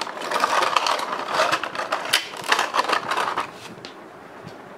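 Clear plastic blister tray of a boxed model airliner being handled and prised open, crackling and scraping with many small clicks; it stops about three and a half seconds in, leaving only a few faint clicks.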